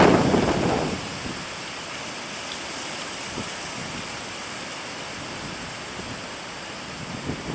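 A wind gust buffeting the microphone, dying away about a second in, followed by a steady hiss of wind.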